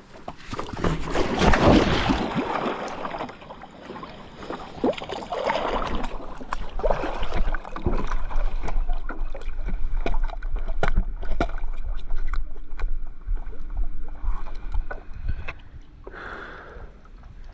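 A paddle board being taken onto the water and paddled: water splashing and sloshing, loudest in a surge about a second in, with scattered knocks and clicks of handling.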